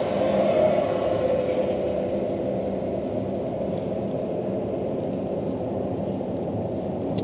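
Car driving on a rough, stony stretch of unpaved road: a steady rumble of engine and tyres, a little louder in the first second.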